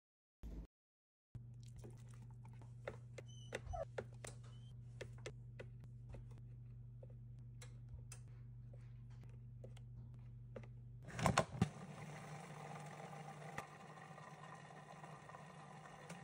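A short silence, then light clicks and taps of a spoon against a plastic food processor bowl over a low steady hum. About eleven seconds in there is a clatter, and then the Cuisinart food processor's motor runs steadily.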